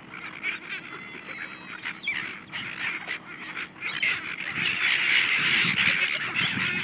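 A flock of silver gulls mobbing scattered hot chips: many overlapping squawking calls and flapping wings, growing louder and denser from about four seconds in.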